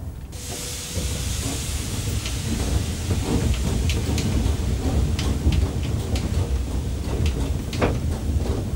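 Steam locomotive moving slowly: a steady hiss of escaping steam over a low rumble, with scattered sharp clicks and clanks from the running gear.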